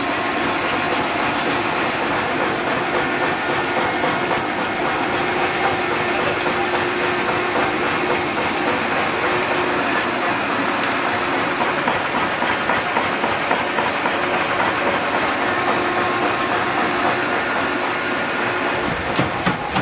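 Steady mechanical workshop din with a faint motor hum running throughout, and a few sharp metal clinks near the end.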